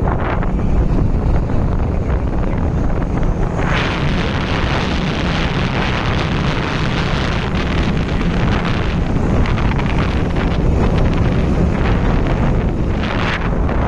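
Wind buffeting the microphone of a phone carried in a moving vehicle, a steady heavy rumble with a hiss that swells a little at times.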